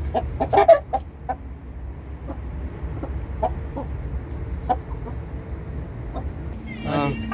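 Aseel chickens, young roosters and hens, clucking in short, scattered calls over a low steady hum.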